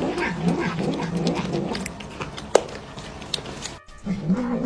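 Domestic cat growling and grumbling in a low, wavering voice while it chews food, with scattered clicks from its chewing. A brief break near the end, then the low growling starts again.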